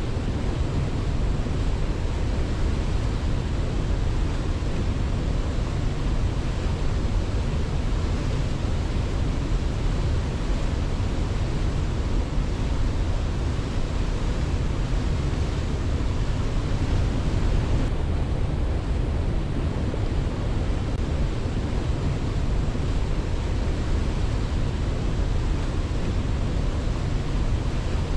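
A waterfall rushing, a steady, even roar of falling water with its weight in the low end and no rise and fall of waves.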